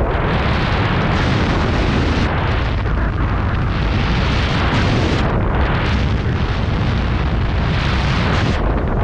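Loud, steady roar of rushing wind buffeting a skydiver's camera microphone.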